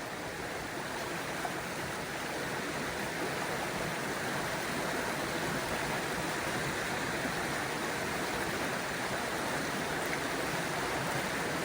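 Steady rushing of Hoggs Falls, running high and fast with spring snowmelt runoff.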